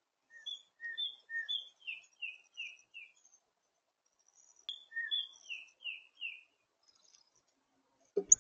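A songbird singing a short whistled song twice, about a second and a half apart: a few quick two-note phrases, then a run of falling slurred notes, the second song shorter. A sudden thump just before the end is the loudest sound.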